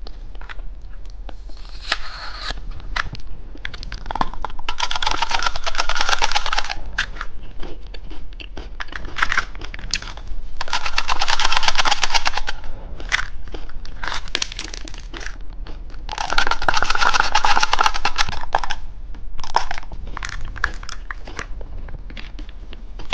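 Plastic candy packaging crinkling and tearing as it is handled and opened. There are three longer spells of dense crinkling, with scattered crackles and clicks between them.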